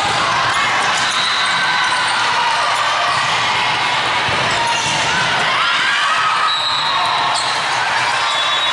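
Indoor volleyball rally: the ball being struck by the players' hands and arms, with short sneaker squeaks on the court floor, over a steady din of voices echoing in the hall.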